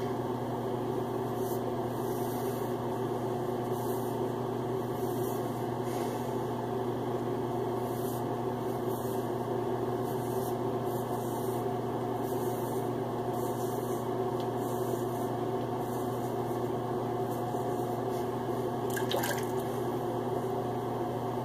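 Water running steadily from a tap, with a few faint splashes.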